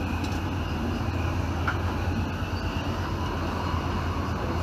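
1980s-era train running, a steady low rumble heard from on board, with a short click about a second and a half in.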